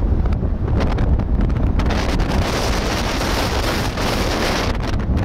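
Wind buffeting the microphone of a camera on a moving vehicle: a loud, steady, low rumbling rush of wind noise.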